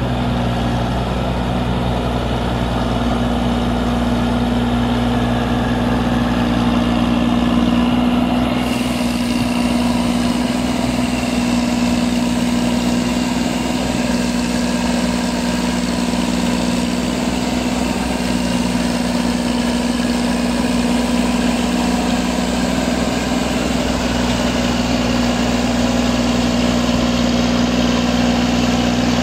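New Holland 8080 combine harvester's diesel engine running steadily at an even speed, with a strong low hum.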